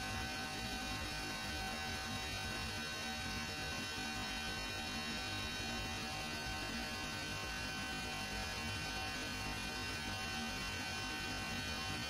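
Steady machinery hum of running chiller plant, with several constant whining tones over a low drone and no change throughout.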